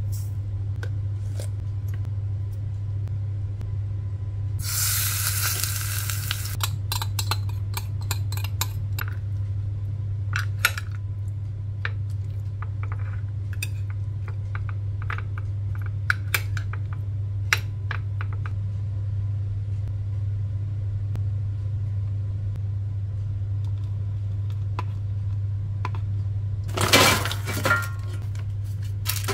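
Home kitchen food-prep sounds: a spoon and other utensils clinking and tapping on a ceramic bowl and glass containers, over a steady low hum. Two brief rushing noises stand out, one about five seconds in lasting about two seconds, and a shorter one near the end.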